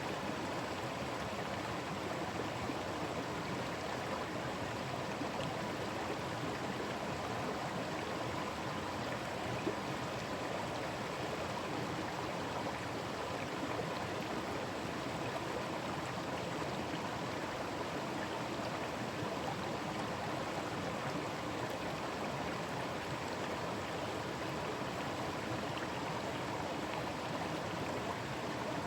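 Forest stream running steadily over its bed, an even rushing and burbling of water, with one brief click about ten seconds in.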